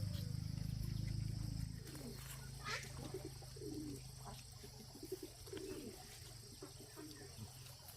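A low steady hum that stops about two seconds in, then scattered short low bird calls over a steady high insect drone.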